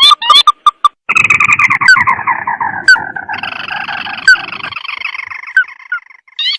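Crake call played as a hunting lure. A quick run of sharp, clipped notes is followed by a long, fast trill that slides steadily down in pitch over about five seconds.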